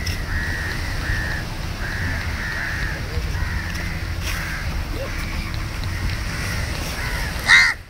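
Crows cawing repeatedly in short calls, with one louder caw near the end, over a steady low rumble of surf.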